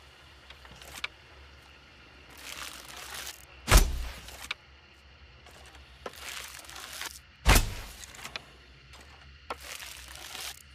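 Hunting bow and arrow shot twice: each time about a second of hissing rustle, then a sharp, loud crack with a deep thud. A third rustle starts near the end.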